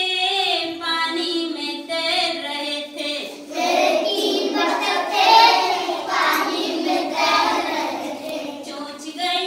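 A group of young children singing together in unison. The singing gets louder and fuller about three and a half seconds in.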